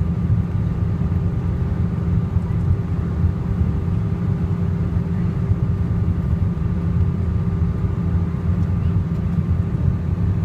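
Steady low drone of a Boeing airliner's cabin in flight on descent: engine and airflow noise, with a faint steady hum over it.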